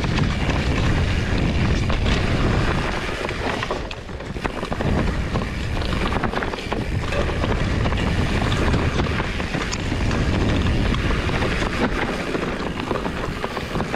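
Wind buffeting the microphone over the rumble of a mountain bike rolling along a rough trail, with scattered clicks and rattles; it eases briefly about four seconds in.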